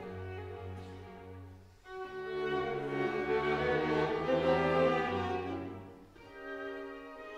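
String quartet of two violins, viola and cello playing live. The playing drops away briefly just before two seconds in, then a louder passage swells up and dies down again about six seconds in.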